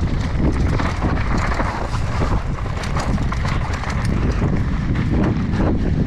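Wind rushing over an action-camera microphone on a fast downhill mountain-bike descent, with irregular clatter and knocks from the bike rattling over rough trail.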